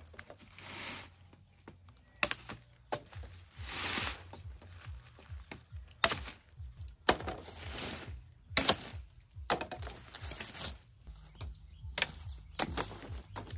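Dry sugarcane leaves and trash rustling as cut cane stalks are handled, with several sharp knocks of cane on cane.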